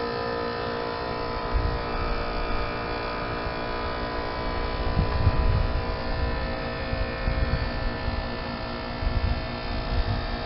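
Outdoor heat pump unit running, a steady many-toned compressor hum, with wind gusting on the microphone.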